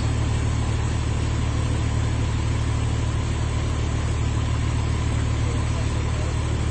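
A vehicle engine idling steadily: a constant low hum that does not change.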